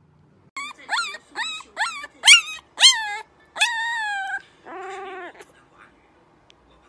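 Puppy howling: a run of about six short, high cries that rise and fall, then a longer cry that falls and levels off, then a lower, steadier one.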